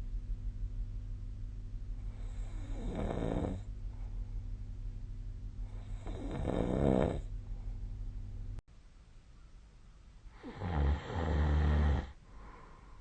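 A sleeping person snoring: three snores about four seconds apart, the last the loudest and deepest. A low steady hum runs underneath and cuts off suddenly about two-thirds of the way through.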